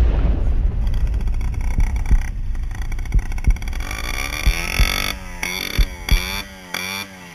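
VéloSoleX moped engines running under a low rumble of wind, with a few low thumps. From about four seconds in, music with gliding synth notes over a steady bass note takes over.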